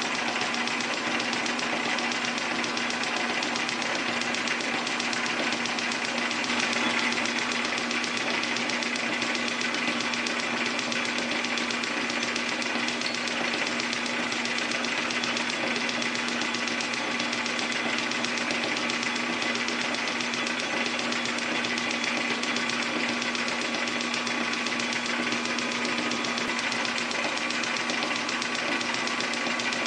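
A metal lathe running steadily under power, turning a round bar as its end is faced and centre-drilled. It makes a steady low hum with a fast, even rattle.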